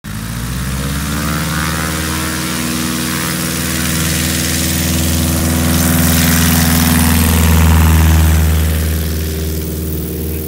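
A light taildragger plane's piston engine and propeller run up to high power as it rolls across a grass strip. The sound grows louder as it passes close, peaking about eight seconds in, then fades as it moves away.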